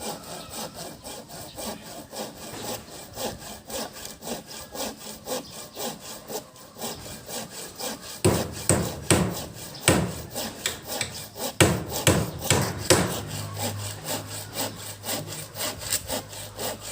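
Hand saw cutting through wood in quick, even back-and-forth strokes, the strokes getting heavier for a few seconds in the middle.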